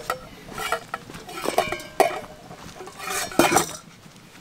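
Metal camp cooking gear and utensils being handled and set down: a series of clinks and knocks, some with a short metallic ring, the sharpest about two seconds in.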